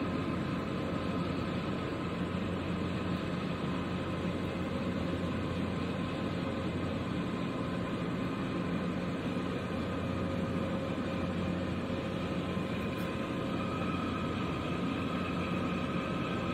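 Large container ship's machinery droning steadily as the hull passes close by: an even rumble with a constant low hum and a few fainter steady higher tones.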